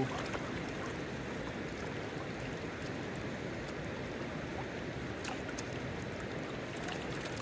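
Shallow river running over a stony bed: a steady rushing of water, with a few faint clicks about five seconds in.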